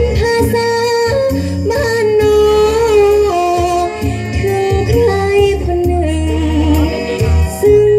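Thai luk thung music played over stage loudspeakers. A melodic lead line moves in steps between held notes over a steady bass line.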